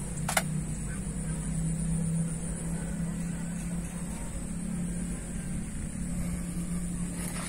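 Hitachi excavator's diesel engine idling, a steady low drone. A single sharp click comes just under half a second in.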